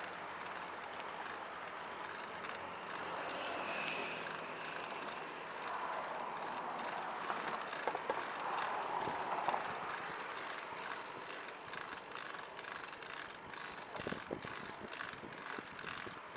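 A tadpole recumbent trike rolling along a concrete path, a steady rushing rolling noise, with a few short sharp knocks in the second half as the wheels run over the joints in the concrete.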